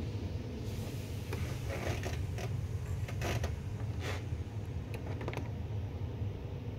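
Light clicks, taps and short scrapes of hand tools and metal parts being handled during engine work, over a steady low hum.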